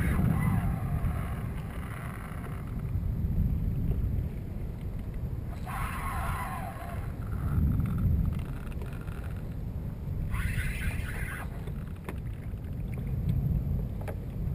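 Wind rumbling on the microphone and choppy water lapping around a kayak during a fight with a fish. Three short bursts of higher hissing noise come near the start, about six seconds in and about ten and a half seconds in.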